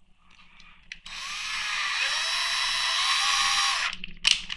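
Power drill with a number 50 bit drilling into the diecast car's post, starting about a second in, with a rising whine as it spins up, and running for close to three seconds. Near the end come two short bursts of drilling.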